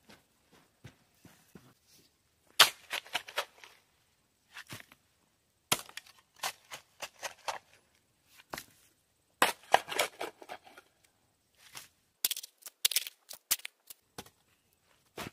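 Long-handled hand tool scraping and chopping into loose clay soil, pushing dirt in around the base of a post. It comes in short bursts of sharp scrapes and knocks with pauses between.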